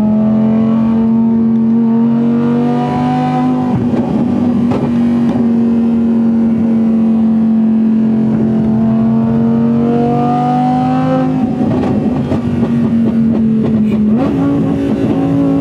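Audi R8's V10 engine through an aftermarket exhaust, heard from inside the cabin at highway speed: a loud, steady drone whose pitch climbs slowly twice, each climb cut short by a brief break, with a short rise in revs near the end.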